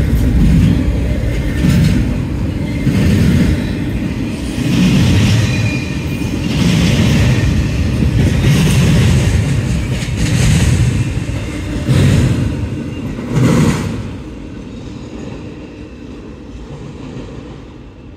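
Double-stack BNSF intermodal freight train rolling past, a steady low rumble with a click or thump every second or two as the wheels cross rail joints. The sound drops away about 14 seconds in and fades.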